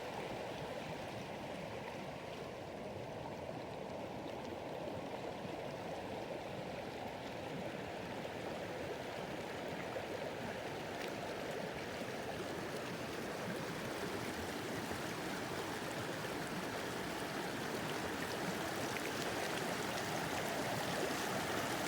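Creek water flowing and trickling over rocks, a steady rushing and gurgling that grows slightly louder toward the end.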